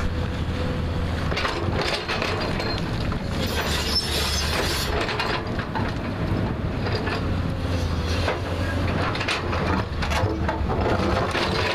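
JCB backhoe loader's diesel engine running with a steady low drone, with repeated knocks and clatter of the bucket cutting into the hillside's rock and soil.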